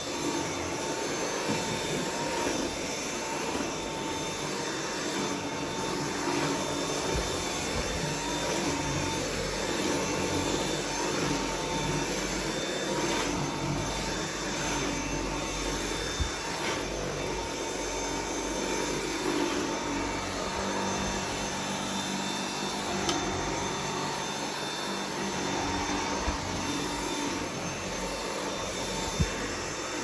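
Dyson V7 cordless stick vacuum running on carpet: a steady rush of air with a constant whine as the floor head is pushed back and forth, with a few light clicks.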